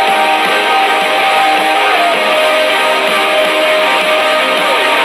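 Music: a song with strummed guitar and one long held note that steps down in pitch about two seconds in.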